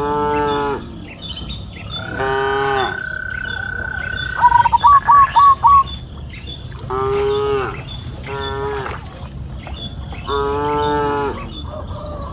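Cows mooing, about five short calls, each under a second long. A bird sings over them: a long held whistle, then a quick run of about six short loud notes around five seconds in.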